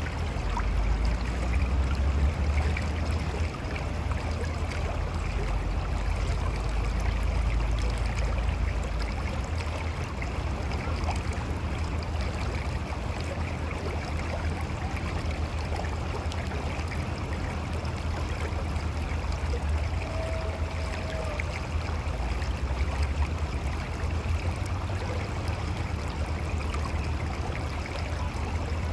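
Mountain river flowing and gurgling over rocks: a steady rush of water with a deep low rumble underneath.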